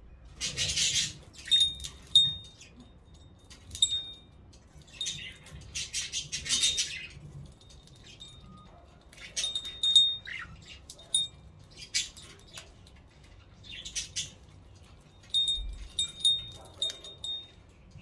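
Budgerigar chattering in short, scratchy bursts, with quick high clicks and ticks in between.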